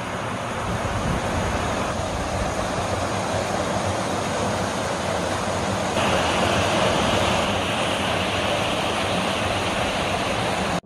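Rushing water of small cascades in a rocky mountain stream, a steady splashing rush that changes in tone about six seconds in.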